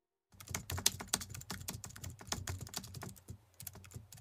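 Rapid keyboard typing: a fast, uneven run of key clicks that begins just after the start, with a short pause a little past three seconds in.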